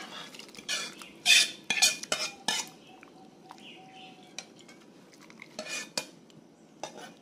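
Utensil clinking and scraping against the pot and bowl as sautéed spice paste is scraped into oxtail soup broth and stirred. A cluster of sharp clinks comes between one and three seconds in, then a few softer ones near the end.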